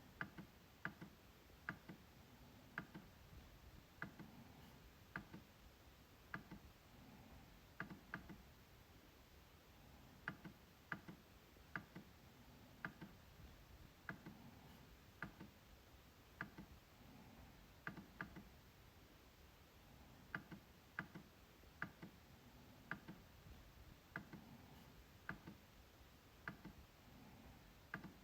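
MacBook trackpad being clicked: short, sharp clicks at uneven spacing, roughly one or two a second, some in quick double-click pairs.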